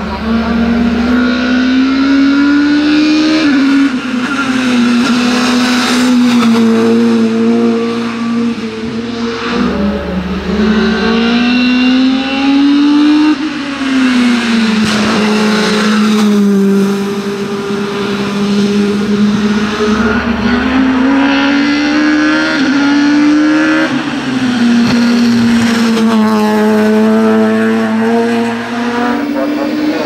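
Renault Laguna BTCC touring car's naturally aspirated 2-litre four-cylinder racing engine at high revs under full throttle. Its pitch climbs and then drops sharply several times as it shifts up through the gears and lifts for corners.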